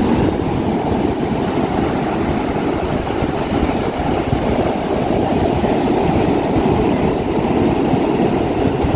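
Wind buffeting the microphone: a steady low rumble that runs on without a break.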